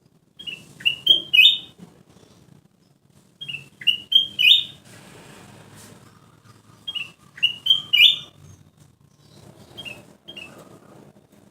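Kutilang emas bulbul singing, repeating the same short phrase of four or five quick, clear notes three times about three seconds apart, with a softer fourth phrase near the end.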